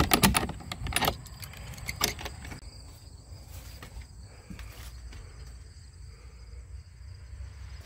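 Metal door hasp and padlock rattling in a quick run of clicks, then two knocks about one and two seconds in. After that there is only a faint low rumble.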